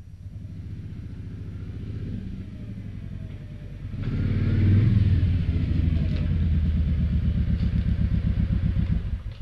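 2010 Kawasaki Nomad's V-twin on its stock exhaust pipes, growing louder as the motorcycle rides up and pulls in close. It then idles with an even low pulse and cuts off suddenly near the end.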